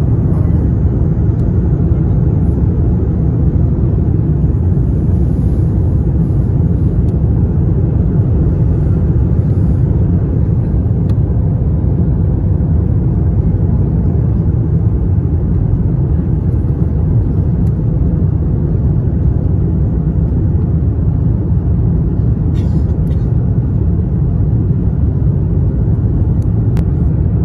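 Steady low rumble of an airliner's engines and rushing air, heard from inside the cabin at a window seat over the wing during descent.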